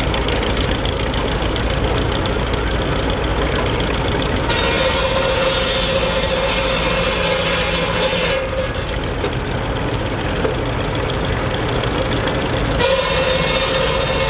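Ferguson TE20 tractor engine running steadily, driving a circular cordwood saw blade. The blade cuts into a log from about four seconds in for some four seconds, and again near the end, each cut adding a harsh rasp over the engine.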